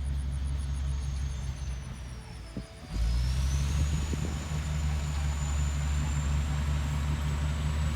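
A bulldozer's diesel engine running steadily, with a faint high whine over it. About two and a half seconds in, the engine dips briefly with a few knocks, then comes back louder and stays up.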